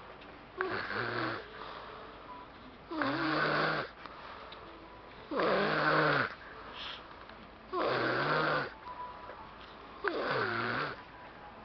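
Snoring in a steady breathing rhythm: five drawn-out snores, each about a second long, about every two and a half seconds.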